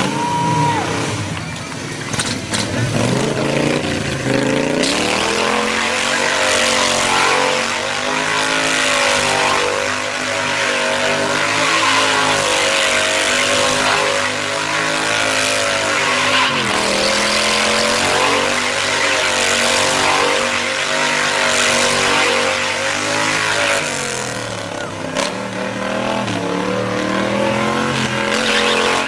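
Lawnmower engine held at high revs during a burnout, its pitch wavering up and down with a few brief dips, and a steady hiss of spinning tyres over it from about five seconds in.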